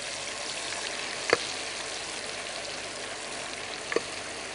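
Battered chicken pieces deep-frying in a pot of hot oil, a steady bubbling sizzle just after the meat has gone in. Two short clicks cut through it, one about a second in and one near the end.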